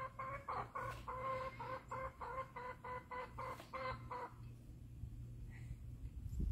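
A black hen clucking, a quick run of short, even clucks, about three or four a second, that stops about four seconds in.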